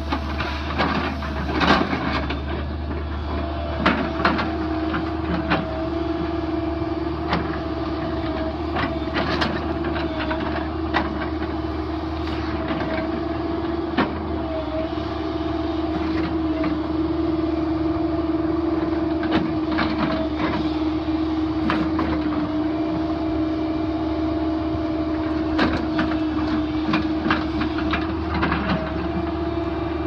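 Isuzu diesel engine of a Link-Belt 160LX excavator running steadily under load as it swings and digs, with a steady whine setting in about three and a half seconds in and scattered clanks and knocks from the bucket and boom.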